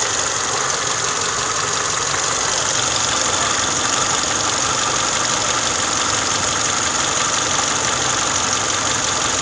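Car engine idling steadily on fresh Motul 5W30 oil, without the valve tapping it had before, which the owner credits to the oil change.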